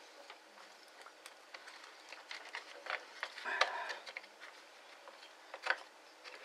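Faint, scattered clicks and taps of plastic cordless-drill parts and wiring being handled and fitted into the housing by hand, with a brief louder rub a little past halfway.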